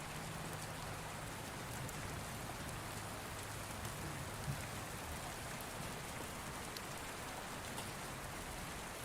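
Steady rain falling on surfaces: an even hiss with a few faint, scattered drop ticks.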